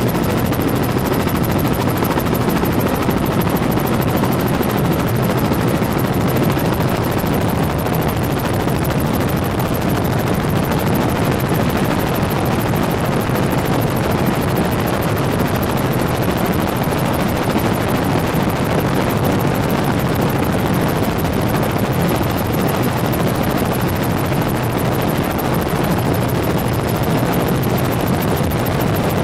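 Helicopter in flight, heard from inside the cabin: a steady, loud drone of rotor and engine noise.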